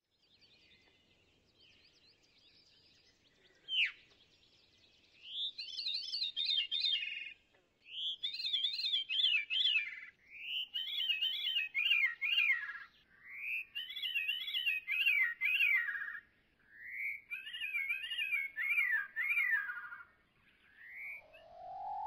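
Veery song, artificially slowed down and lowered in pitch: a rising note followed by a descending, spiralling run of flute-like notes, repeated five times, each repetition a little slower and lower than the last. A single sharp falling note comes just before the first song.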